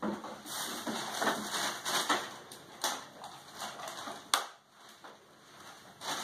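Irregular clattering and knocking of small objects as a toddler rummages in a kitchen drawer, with a couple of sharp clicks.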